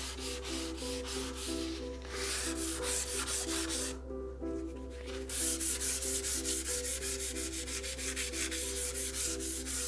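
Fine 400-grit sandpaper on a block rubbed by hand along a hand saw's steel blade in quick back-and-forth strokes, about four a second. The strokes pause briefly about four seconds in. This is the fine sanding that cleans rust and grime from the blade.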